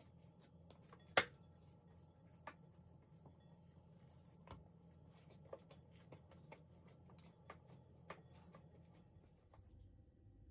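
Hands punching down and kneading soft dough in a glass bowl: faint, scattered soft taps and rustles, with one sharper tap about a second in.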